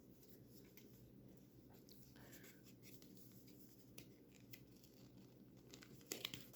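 Near silence: room tone with a faint low hum and faint scattered clicks of cardboard cube packaging being handled, with a few louder clicks near the end.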